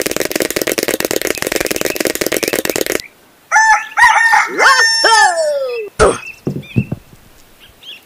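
Cartoon sound effects: a fast fluttering patter for about three seconds, then a run of high, squeaky, falling squeals, and a sharp click about six seconds in.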